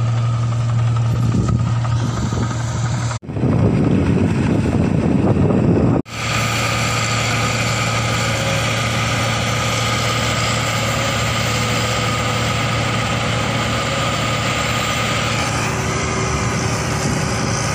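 Rice combine harvester's engine and working machinery running steadily, a constant hum with a strong low drone. Between two abrupt cuts, about 3 and 6 seconds in, it is louder and rougher.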